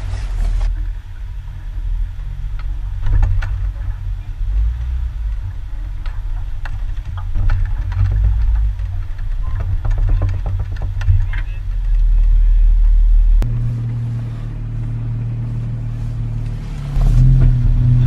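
Jeep engine running at low revs as it crawls over a rocky trail, with scattered clicks and knocks of tyres rolling over stones. About thirteen seconds in, the engine note steadies and gets louder.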